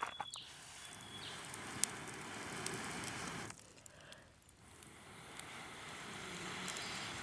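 Wood campfire burning, with sharp crackles and pops over a rushing noise that swells up and dies down twice.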